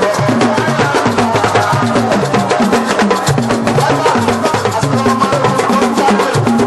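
Senegalese sabar drums playing a fast, dense rhythm, struck with sticks and bare hands.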